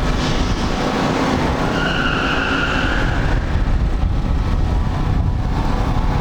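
Big-block V8 muscle car engine running loud at a drag strip, with a high squeal lasting about a second and a half, starting about two seconds in.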